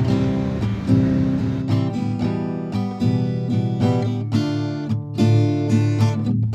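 Acoustic guitar music, plucked and strummed notes. It starts suddenly over a fading rush of wind and surf noise that is gone after about a second and a half.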